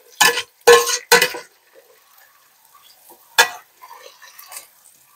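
A slotted spoon clattering against cookware while browned ground beef is scooped out of the pot: three quick clatters in the first second and a half, then one sharp knock about three and a half seconds in, with faint light clinks after.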